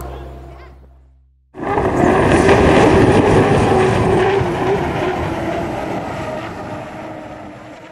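Unlimited racing hydroplane's gas turbine engine running at speed, a loud, even rushing noise that starts abruptly about a second and a half in and fades away over about six seconds.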